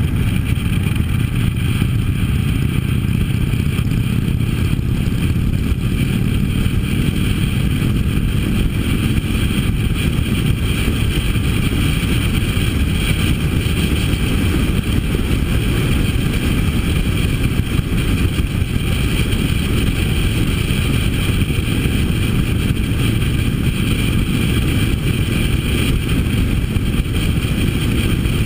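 Harley-Davidson V-twin motorcycle engine running steadily at cruising speed, under a constant rush of wind and road noise.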